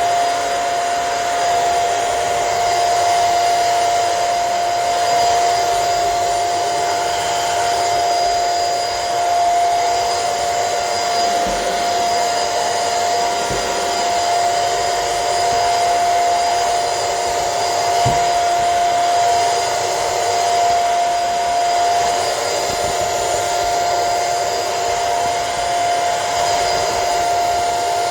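BISSELL CrossWave wet-dry floor cleaner running steadily, its motor giving a constant high whine over a rushing hiss, with a couple of faint low knocks partway through.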